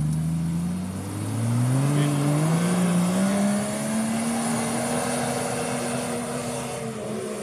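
Jeep Grand Cherokee engine pulling hard under load up a steep sand dune. Its revs climb over a couple of seconds, from about a second and a half in, then hold high and steady as it keeps climbing.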